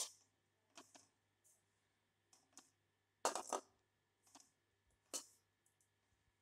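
Metal spatula scraping and clinking against a metal kadai while stirring torn bread pieces frying in ghee: short, irregular strokes roughly one or two a second, the loudest a quick cluster of clinks about three seconds in.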